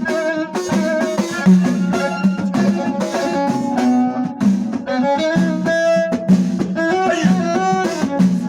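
Instrumental passage of an Amazigh song: a melodic instrument line over drums keeping a steady beat.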